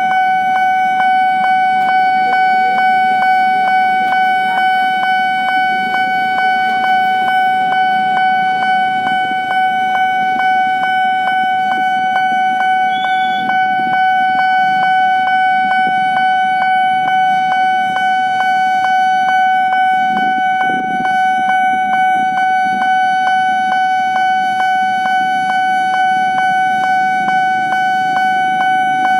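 Level crossing warning alarm sounding: one steady, unbroken bell tone struck over and over in a fast, even rhythm while the crossing is closed for an approaching commuter train, with low traffic noise underneath.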